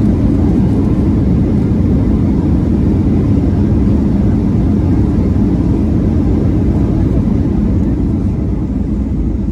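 Boeing 737-800 cabin noise: a loud, steady rumble of the CFM56 engines and airflow heard from inside the passenger cabin, easing slightly near the end.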